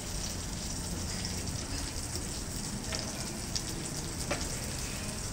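Steady crackling sizzle of food in a hot pan, with a few faint clicks between about three and four and a half seconds in.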